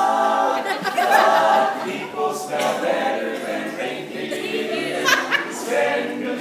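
All-male a cappella group singing in close vocal harmony with no instruments.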